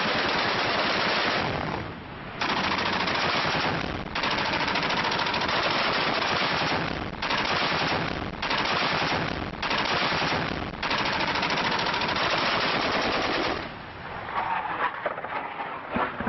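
Truck-mounted heavy machine gun firing long, rapid bursts broken by brief pauses. The firing stops near the end.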